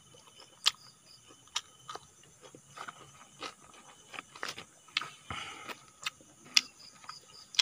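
Close-up chewing of cooked sugar-palm grubs: irregular crisp clicks and mouth smacks, roughly one a second.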